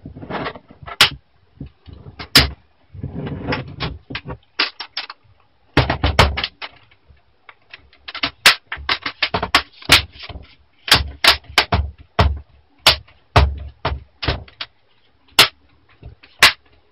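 Plastic screen bezel of a Fujitsu Lifebook A544 laptop being snapped back onto the lid: many sharp plastic clicks at an irregular pace as its clips seat, with short stretches of plastic rubbing and scraping between them.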